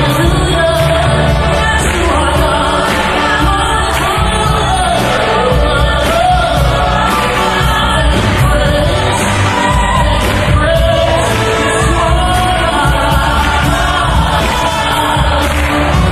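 Large choir and a male soloist singing with a symphony orchestra of strings and brass.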